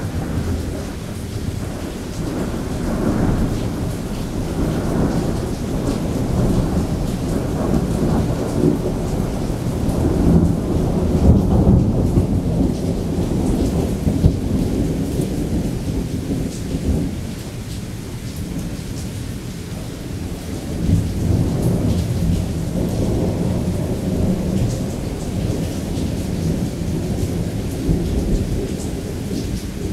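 Thunder rumbling almost without pause in a heavy thunderstorm, swelling loudest about ten to fourteen seconds in and again a little after twenty seconds, with rain falling throughout.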